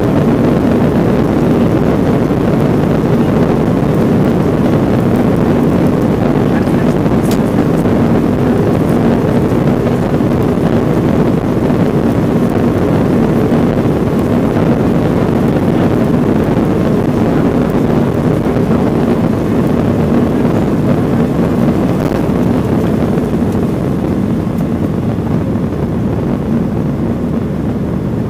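Cabin noise of a Boeing 737-700 in its climb, heard from a seat by the wing: a steady loud rush of CFM56-7B engine and airflow noise with a steady low hum, easing slightly near the end.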